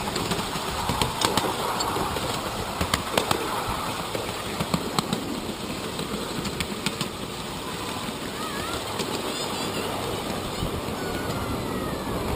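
Miniature railway train rolling along 7¼-inch gauge track: a steady rumble of wheels on rail with irregular sharp clicks. A bird chirps a few times in the second half.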